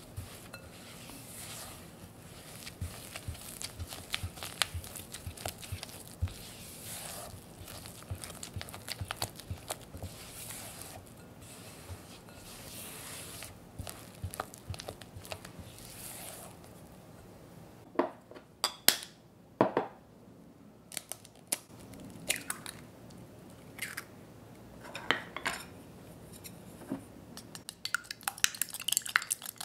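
A silicone spatula scrapes and mixes softened butter and powdered sugar in a glass bowl, making soft continuous scraping and squishing. This is followed by a few sharp knocks. Near the end comes rapid clicking of chopsticks whisking an egg in a small glass cup.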